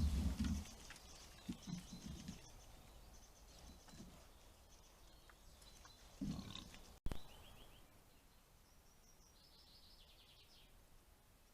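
Wild boar grunting, loudest at the very start, with a few fainter grunts later. After a sharp click about seven seconds in, a bird gives short, high, trilled calls.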